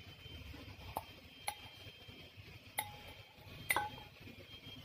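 Metal fork clinking against a glass bowl four times while spearing dragon fruit slices; each clink rings briefly, and the last is the loudest.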